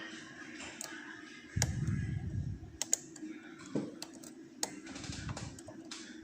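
Lock pick clicking and scraping against the pins inside an ASSA Oval cylinder lock as it is picked under tension: irregular small sharp clicks, with a few duller bumps of handling.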